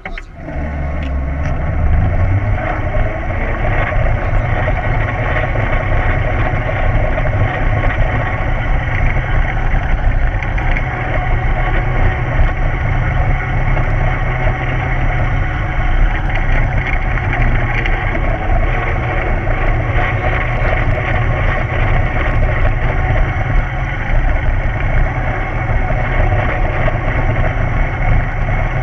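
Children's go-kart engine running close to the microphone, picking up over the first couple of seconds as the kart sets off, then holding a steady drone as it drives round the track.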